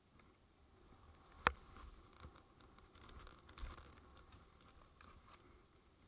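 Faint, scattered clicks and knocks, with one sharp knock about one and a half seconds in and a second, smaller cluster around the middle.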